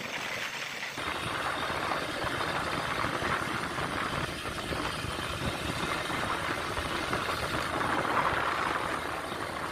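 Steady noise on board a mechanised fishing trawler under way: the boat's engine running, mixed with wind on the microphone and the sea, growing a little louder about a second in.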